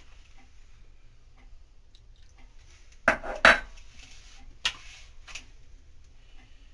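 Hands kneading a stiff flour dough in a thali, with faint rustling and a few clattering knocks of the plate, the loudest cluster about three seconds in and two lighter knocks over a second later.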